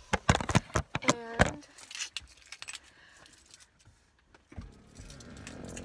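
Car keys jangling on their key ring, a quick run of clinks in the first second and a half, then quieter.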